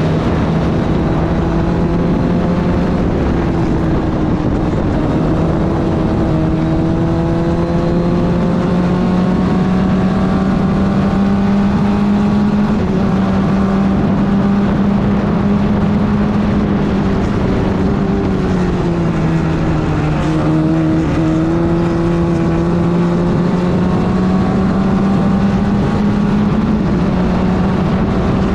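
Club Ford race car's four-cylinder engine running at steady revs, its pitch stepping slightly down and back up a couple of times.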